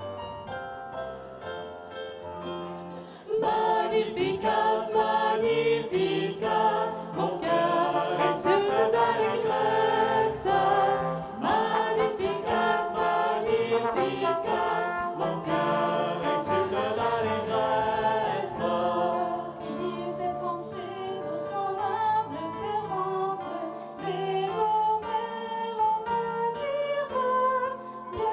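Live music: a keyboard plays alone for about three seconds, then a group of singers comes in with the accompaniment and the song carries on, louder.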